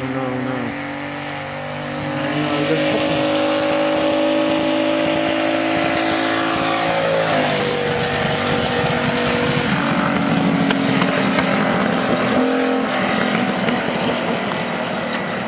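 A high-powered vehicle engine running hard, louder from about two seconds in, then dropping in pitch about halfway through as it passes.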